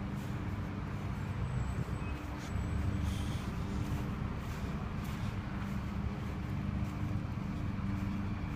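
Steady low rumble of street traffic, with a large vehicle's engine running.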